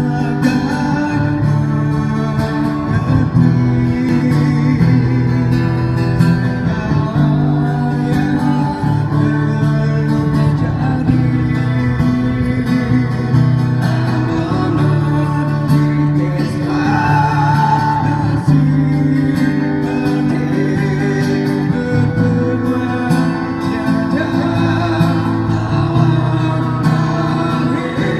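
A man singing into a microphone while playing guitar, both amplified through a small speaker, with a held high note about two-thirds of the way through.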